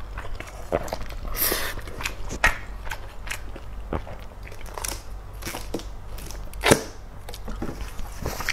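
Close-miked eating sounds: chewing and mouth noises, with a spoon scraping a stainless-steel pot, then a drink taken from a plastic bottle. A single sharp knock about two-thirds of the way through is the loudest sound.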